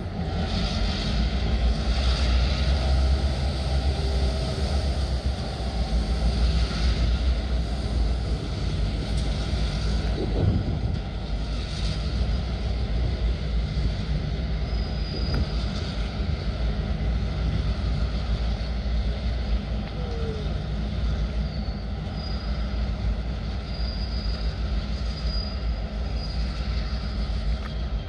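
Pair of diesel road-switcher locomotives running as they roll slowly away along the track: a steady low engine rumble with rail and wheel noise, and a few faint, thin high squeals in the second half.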